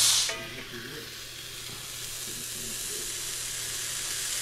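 Steak sizzling on a ridged electric grill plate, left uncovered. A loud hiss drops away just after the start, then the sizzle carries on steadily and grows slowly louder.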